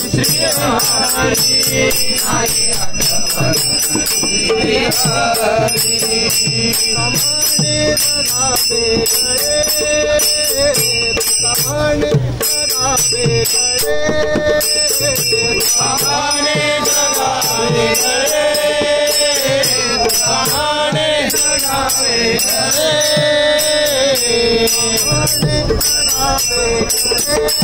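Group of men singing a Marathi bhajan to Vitthal in call-and-response style, with small hand cymbals (taal) clinking a steady beat and ringing throughout. The voices come through more strongly in the second half.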